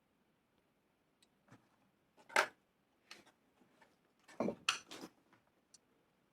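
Objects being handled: a few separate knocks and clicks, the loudest about two and a half seconds in, then a short cluster of knocks and rustles around the middle.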